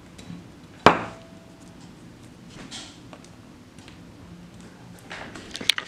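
A sharp click about a second in, with a brief ringing tone after it, then a few lighter clicks near the end: a 1:400 die-cast metal Boeing 777-300ER model being handled, turned around and set down on a hard surface.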